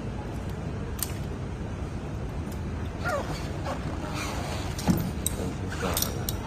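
Scooter repair work: short squeaks and creaks of metal parts being worked with hand tools, with a sharp click about a second in and a few more clicks near the end.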